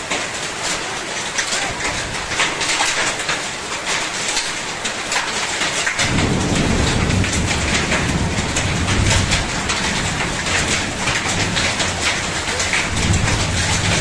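Heavy rain mixed with hail, a dense patter of many small hits. About six seconds in, a low rumble comes in underneath and stays.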